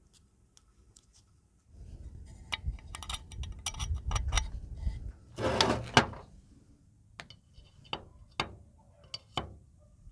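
A screwdriver and small steel engine parts handled by hand: a few seconds of rustling and scraping with many small metal clicks, a louder scrape about five and a half seconds in, then about five separate sharp clicks of the screwdriver tip against the kickstart parts in the scooter's aluminium kickstart cover.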